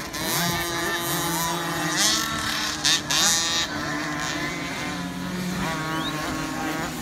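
Several small 50cc two-stroke motocross bikes racing, their engines revving up and down as they ride the dirt track. The sound is loudest for a moment about two to three and a half seconds in.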